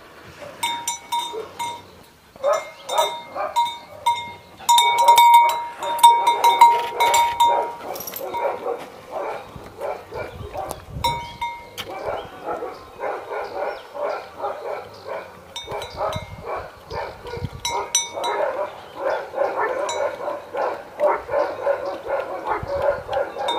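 Animal calls, rough and pulsing, loudest in the second half, with strings of short repeated high tones in the first few seconds.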